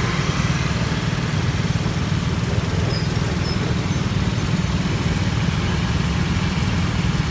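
Motor scooter engines idling in stopped traffic at a red light, a steady low engine sound with no revving.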